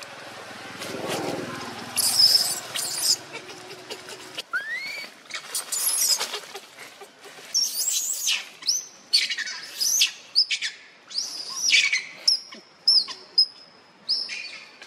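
Newborn macaque crying with many short, high-pitched squeals and chirps that fall in pitch, loud from about two seconds in and coming thick in the middle, shorter and thinner near the end: isolation cries of an infant left alone without its mother. A low hum sits underneath during the first four seconds.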